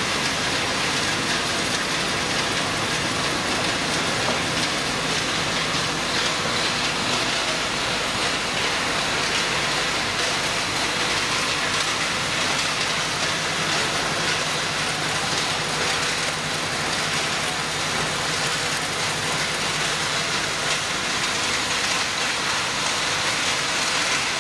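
Radiator recycling machine running: a steady, dense hiss and patter of crushed copper and aluminium radiator granules shaking across the vibrating separating table and conveyor, with a faint low machine hum underneath.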